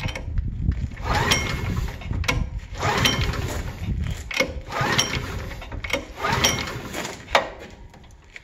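Small gas engine on a portable air compressor being pull-started: about four or five rip-starts of the recoil cord, each a short whirring crank that dies away without the engine catching. The engine is not getting fuel.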